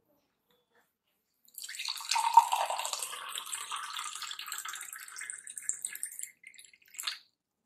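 Water poured from a plastic bottle into a glass tumbler, starting about a second and a half in; the splashing rises steadily in pitch as the glass fills and stops about five seconds later, followed by a brief knock near the end.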